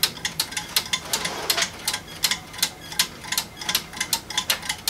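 3D-printed pin-pallet escapement ticking, its steel-wire pallet pins striking the plastic escape wheel, about four ticks a second with a slightly uneven beat.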